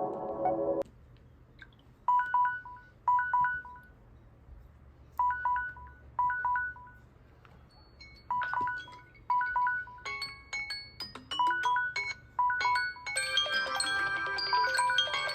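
Smartphone alert tone: short two-note electronic beeps in pairs, a few seconds apart at first, then coming faster with higher notes added, swelling into a full chiming melody about 13 seconds in. Just before the beeps, a previous tone cuts off under a second in.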